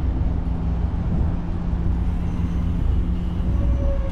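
Road traffic: a steady low rumble with a motor vehicle's engine hum running underneath.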